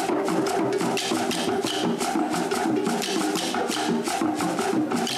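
Background music with a quick, steady percussive beat over sustained tones.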